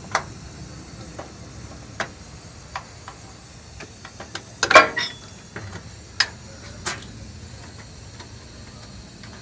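Scattered clicks and knocks of hands working loose the sheet-metal main CPU box of an Aichi manlifter truck, with a louder clatter about five seconds in.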